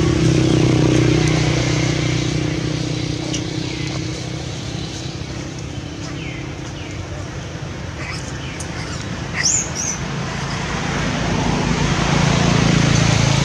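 A motor running steadily nearby, fading in the middle and swelling again near the end, with a short high chirp about nine and a half seconds in.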